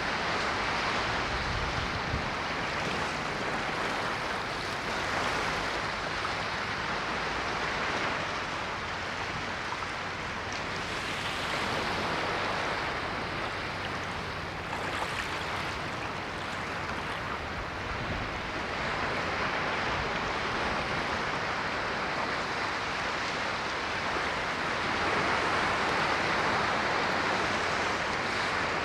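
Ocean waves breaking and washing ashore: a continuous rush of surf that swells and eases every few seconds.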